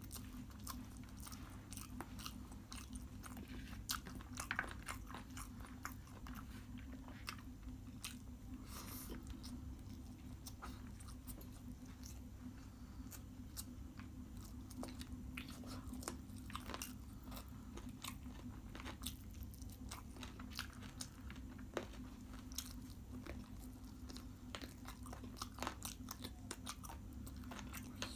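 A person chewing and biting chicken biryani eaten by hand, with many small clicks and crunches, over a steady low hum.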